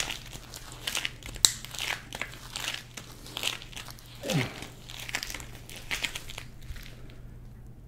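Hardened sugar candy being worked in gloved hands, giving a series of crisp crunching crackles, about one or two a second, over a low steady hum. A short falling tone comes about four seconds in.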